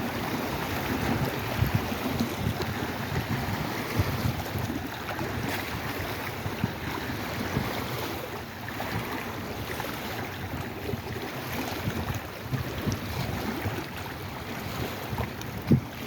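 Lake Erie water washing and lapping steadily, with wind buffeting the microphone and a few brief knocks.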